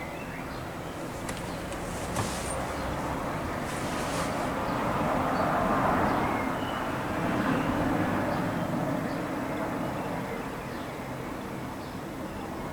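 A low rumble of noise, like a passing vehicle, that swells to a peak about halfway through and fades again, with no bell strikes.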